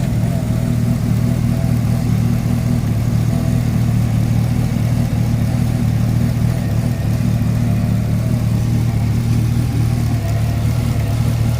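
Chevrolet Camaro SS's 6.2-litre V8 idling steadily. The car has a misfire that a code scan traced to worn spark plugs and plug boots.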